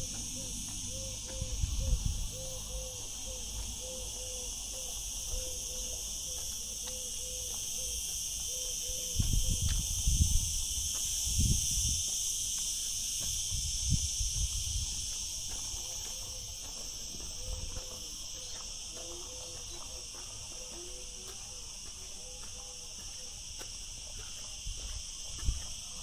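A steady high-pitched chorus of chirring insects, with a faint series of short low notes repeating about twice a second for stretches and occasional low rumbles.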